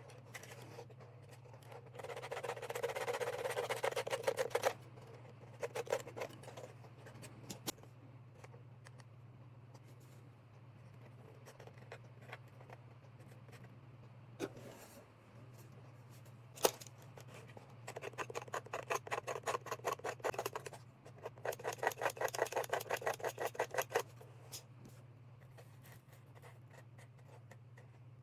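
Fast, rapid scraping strokes on the enamelled wire ends of a speaker voice coil, stripping the insulation before soldering, in three bouts, with a few single clicks in between.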